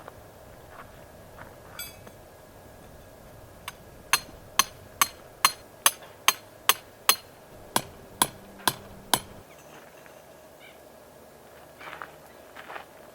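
Hammering: twelve sharp strikes, about two a second, with a brief pause after the eighth.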